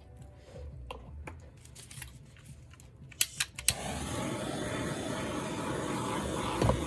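Handheld torch: its igniter clicks three times about three seconds in, then the flame catches and burns with a steady hiss over the wet acrylic paint. Before that, soft handling noises.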